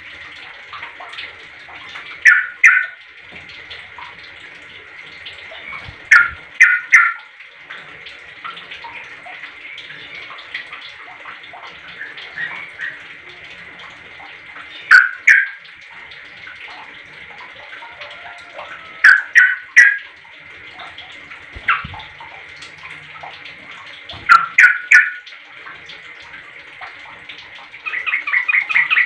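Yellow-vented bulbul (trucuk) calling: short bursts of two or three quick notes every few seconds, then a fast chattering run near the end. A steady hiss like running water lies underneath.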